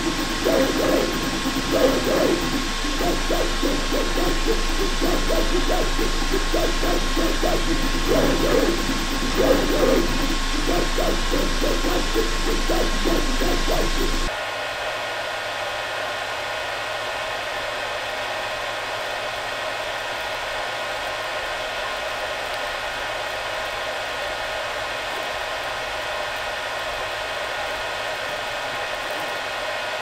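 A Creality Ender-7 3D printer printing: its motion makes rapidly changing warbling tones over a steady fan hiss. About fourteen seconds in, this cuts suddenly to a Creality Ender-3 V2 with stock fans printing: a quieter, steady fan whir with a few constant hums.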